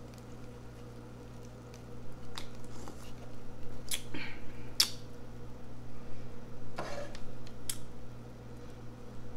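Wet slurps, lip smacks and swallowing as soda is drunk from a paper plate. They start about two seconds in as a few sharp, scattered smacks over a steady low hum.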